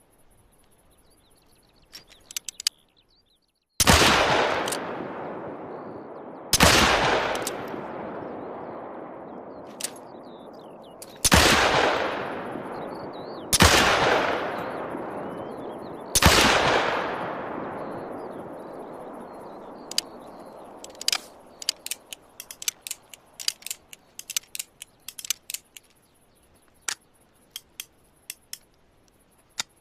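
.45 Colt Single Action Army revolver fired five times at uneven intervals of two to five seconds, each shot followed by a long echoing decay. A few faint clicks come before the first shot, and a quick irregular run of short clicks and taps follows the last.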